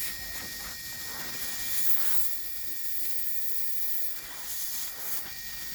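Steady hiss with a buzzing edge from a refrigerator's suction pipe under a leak test, as gas blows through the pipe.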